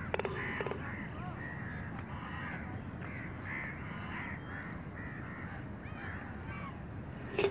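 Faint, distant calls of many birds overlapping, a steady scatter of short calls.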